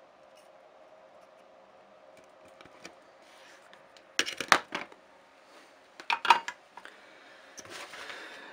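Small hard clicks and clatter from repair tools being handled at a workbench, in two quick clusters about four and six seconds in, then a short scraping rustle near the end, over a faint steady hum.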